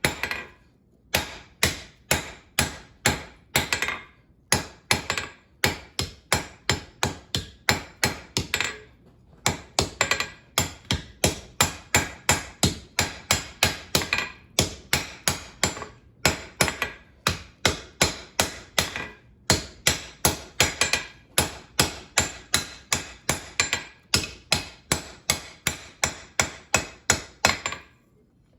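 Steady hammer blows forging steel on an anvil, about two to three strikes a second, in runs of several seconds broken by short pauses.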